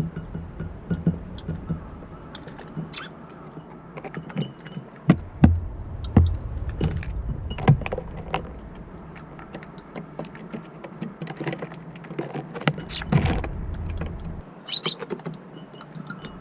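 Strong wind buffeting the microphone in a low, uneven rumble, with irregular sharp taps of small birds pecking at scattered feed and a few short sparrow chirps.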